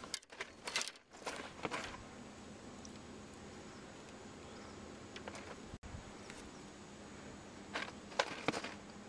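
Splashing and knocking in the first two seconds as a hooked largemouth bass is brought to the boat, then a few more knocks and rustles near the end as the fish is handled.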